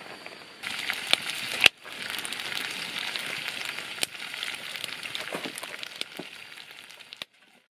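Pork and vegetables sizzling in a steel wok over a crackling wood fire, with a steady frying hiss and a few sharp pops. The sound cuts off abruptly near the end.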